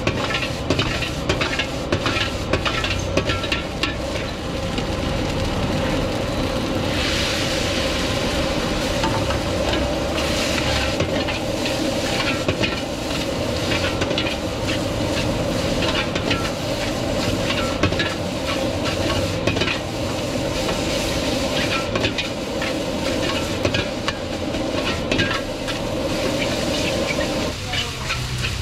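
Fried rice stir-fried in a wok over a high gas flame: a metal ladle repeatedly clanks and scrapes against the wok as the rice sizzles and is tossed, over the steady roar of the burner.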